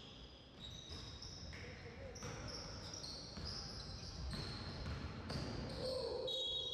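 Live basketball play on a gym court: the ball dribbling and bouncing while sneakers squeak briefly and often on the floor, with players' voices in the background.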